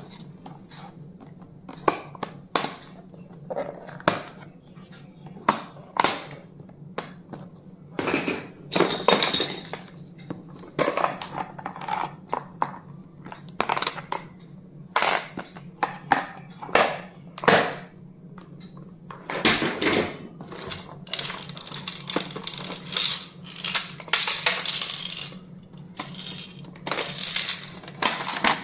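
Stationery items being handled: irregular clicks, taps and clatters of hard plastic and metal pieces, with a stretch of rustling packaging about two-thirds of the way through.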